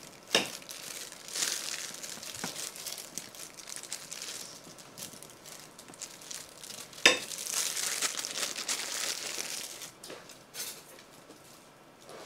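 Clear plastic piping bag crinkling and rustling as chocolate cake batter is scraped into it with a spatula, with two sharp clicks, one about half a second in and a louder one about seven seconds in.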